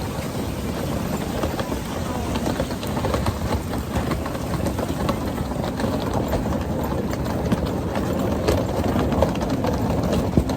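Steady low rumble of a running vehicle, with faint scattered clicks.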